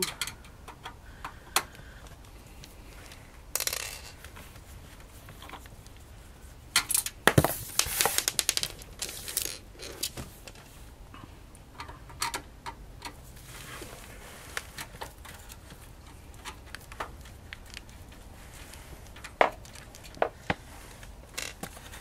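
Screwdriver backing out the power-supply screws on the back of a Dell OptiPlex 790 tower: scattered small metallic clicks, scrapes and rattles, busiest about seven to ten seconds in.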